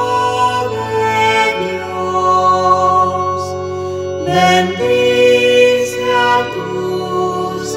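A choir singing a processional entrance hymn over sustained, organ-like chords that change about every second.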